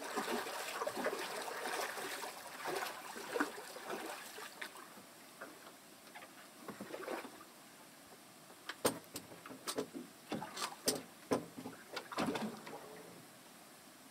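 Rustling water and handling noise, then a quick run of sharp knocks and slaps on a boat's side and deck for about four seconds as a caught fish is lifted aboard.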